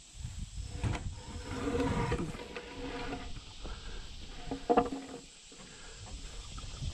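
A wooden board being dragged out over grass and brush, with scraping, rustling and a sharp knock about two-thirds of the way through, while pigs in a livestock trailer grunt.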